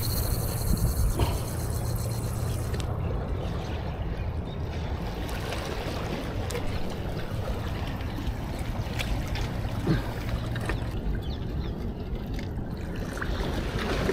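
Steady outdoor noise of wind and water at a seashore, with a low steady hum that fades out about eleven seconds in and a few faint clicks.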